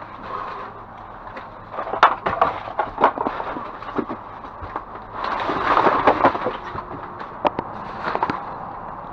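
Rummaging through discarded boxes and packaging in a dumpster: rustling and crinkling with many sharp knocks and clatters, coming in busy spells.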